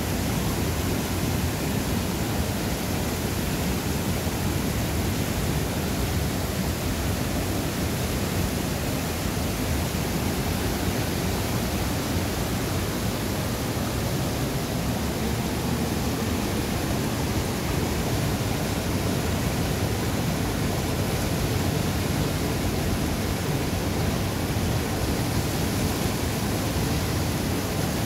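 Rushing river water, a steady, unbroken rush.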